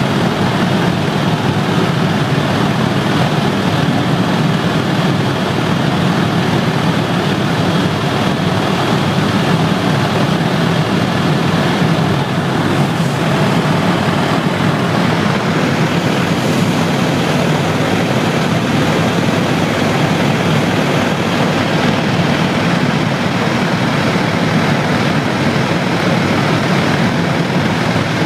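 Helicopter in flight heard from inside its cabin: the rotor and engine running loud and steady, with no change in pitch or level.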